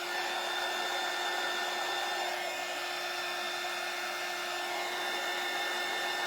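Handheld electric heat tool, hair-dryer type, blowing steadily: an even rush of air with a steady motor hum and whine, used to warm the tacky Mod Podge under a transfer.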